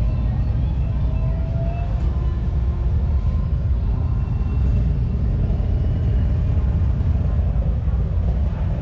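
Steady low rumble of motorcycle engines idling and running in the street.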